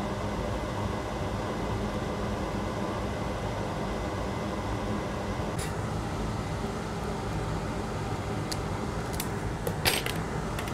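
Steady whirring fan hum, with a few small sharp clicks of tools being handled and set down on the bench. The loudest click comes near the end.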